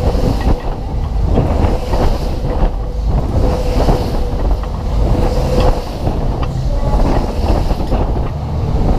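PWS Twist fairground ride running at full speed, heard from a rider's seat: a steady low rumble from the whirling cars, with wind buffeting the microphone.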